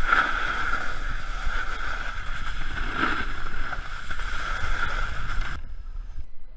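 Steady rush of wind over an action camera and a snowboard sliding on snow while riding down a slope. About five and a half seconds in it cuts off suddenly to a much quieter, duller sound.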